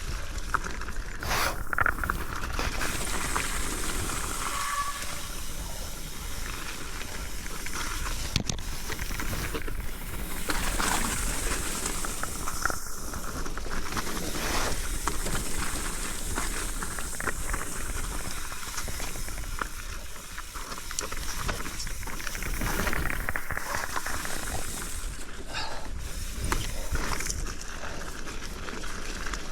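Wind rushing over the bike-mounted microphone and tyres rolling on a wet, muddy trail during a bicycle descent, a steady hiss broken by scattered knocks and rattles.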